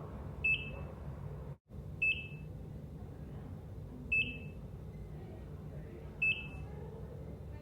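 Heart monitor (ECG) beeping: four short, high beeps about two seconds apart, over a steady low room hum. The sound cuts out completely for a split second between the first and second beep.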